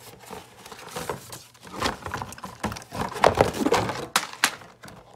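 A cardboard toy box and its paper instruction sheet being handled: irregular rustling, scraping and tapping, with a few sharper knocks past the middle.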